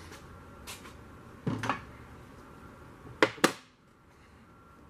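Metal parts knocking and clinking as they are handled: a cluster of knocks about a second and a half in, then two sharp clicks just past three seconds, the loudest.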